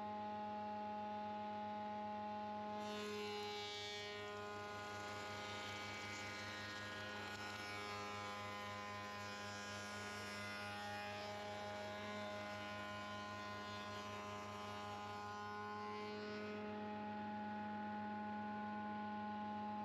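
Sedgwick spindle moulder running with a steady hum. From about three seconds in until about sixteen seconds a hiss is added as the cutter machines a moulding along the edge of a wooden post cap.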